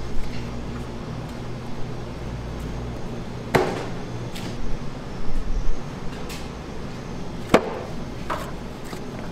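Dough being set and pressed into a clear plastic tub on a stainless steel worktable: two sharp knocks about three and a half and seven and a half seconds in, with lighter knocks between. A low machine hum drops away about three seconds in.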